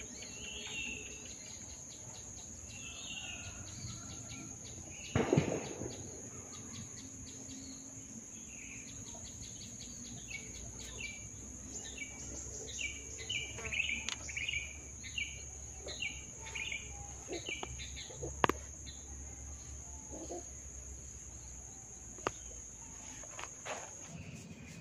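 Steady high-pitched insect chirring, with runs of short bird chirps in the middle. There is a loud thump about five seconds in and a single sharp crack a little past halfway.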